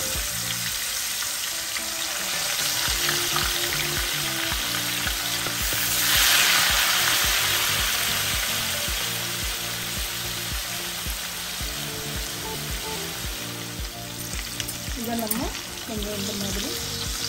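Marinated chicken pieces deep-frying in hot oil: a dense, steady sizzle and spatter, with water left in the marinade sputtering in the oil. It swells louder about six seconds in, then settles back.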